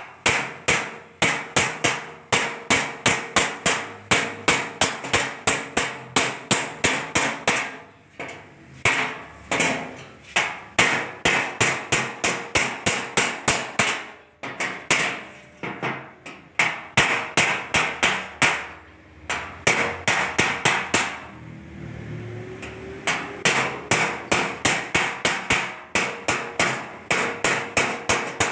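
Hammer blows on the sheet metal of a car bonnet, struck rapidly at about two to three a second in long runs with brief pauses, as air vents are worked into the bonnet.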